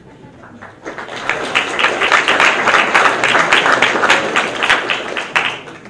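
Audience applauding: a dense patter of many hands clapping that starts about a second in and dies away near the end.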